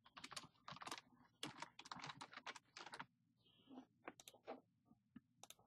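Faint typing on a computer keyboard: a quick run of key clicks for about three seconds, then slower, scattered clicks.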